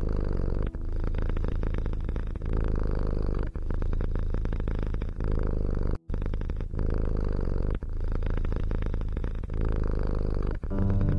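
Domestic cat purring steadily, with short breaks every one to two seconds between breaths and a brief cut-out about six seconds in.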